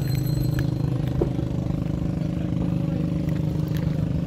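An engine running steadily with an even, low hum. Faint crunching clicks from a dog chewing a raw tilapia can be heard on top.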